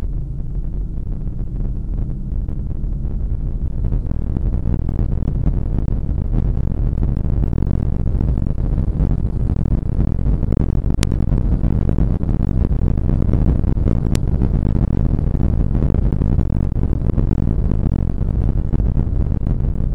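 Porsche 911 (997) flat-six engine running hard at track speed, a dense low rumble mixed with road and wind noise. It grows louder about four seconds in as the car accelerates out of a bend onto the straight.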